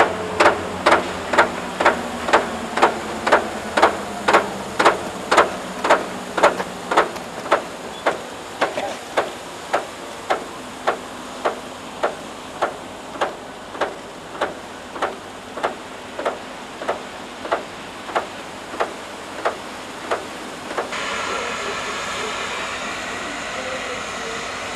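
A train's bell ringing steadily about twice a second on the approaching rotary snow plow train, slowly growing fainter. About twenty seconds in, a steady rushing noise from the rotary plow at work takes over.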